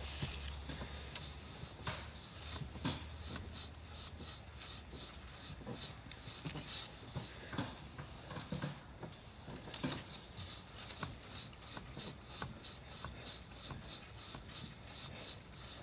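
Hand-priming plunger on a Duramax LB7 diesel's fuel filter head being pumped over and over to pull fuel into a new filter, giving a run of small clicks and knocks, several a second.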